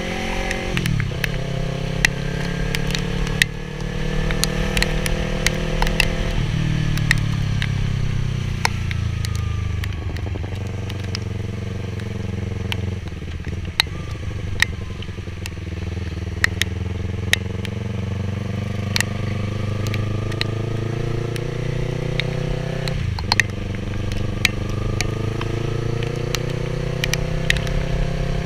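Yamaha R3's 321 cc parallel-twin engine heard while riding, its note rising and falling with throttle and dropping sharply at gear changes, once near the start and again about 23 seconds in. Sharp ticks are scattered throughout.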